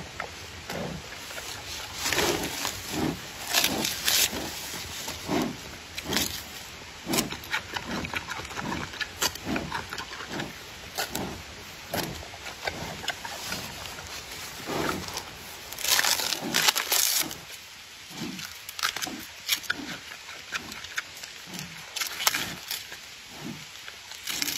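Giant panda eating bamboo: sharp cracks and splintering as it bites and strips the stalks and shoots, over steady rhythmic crunching and chewing. The cracking is loudest about two and four seconds in and again around sixteen seconds.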